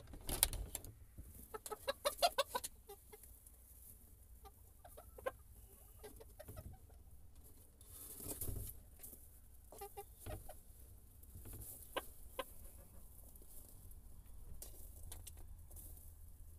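Olandsk dwarf chickens clucking: a quick run of clucks about two seconds in, then scattered single clucks. There is a short thump at the very start.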